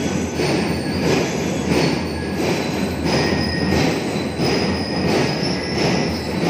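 Drum and lyre band playing a marching beat, the drums striking about twice a second under high, steady ringing notes.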